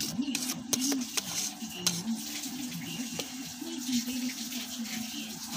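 Kittens scrabbling and wrestling on a plastic bag: fine crackling and rustling with several sharp clicks in the first two seconds, over a low hum whose pitch wavers.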